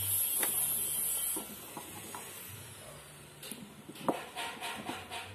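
Faint clicks and taps of a metal fuel level sender being handled and fitted into the filler opening of a plastic motorcycle fuel tank. A steady high hiss with a low hum runs for about the first second and a half. From a little past the middle, short breathy pulses repeat about five times a second.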